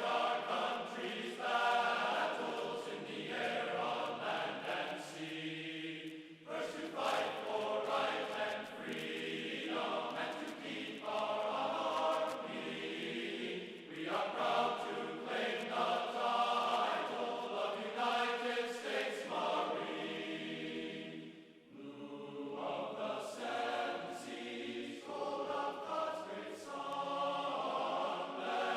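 Background music of choir voices singing in slow, sustained phrases of a couple of seconds each.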